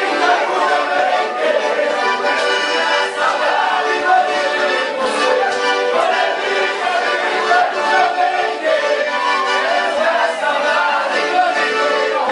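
Sanfona (accordion) playing live dance music, loud and continuous.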